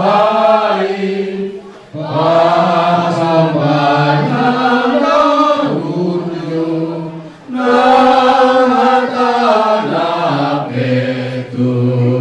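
A group of voices singing a slow hymn in long held notes, with short breaks between phrases about two and seven and a half seconds in.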